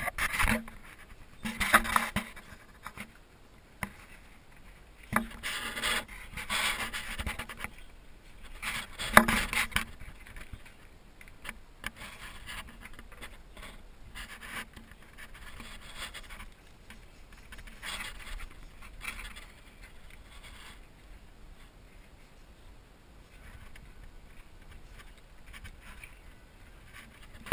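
Irregular scraping and rubbing noises, loudest in short bursts during the first ten seconds and fainter after that.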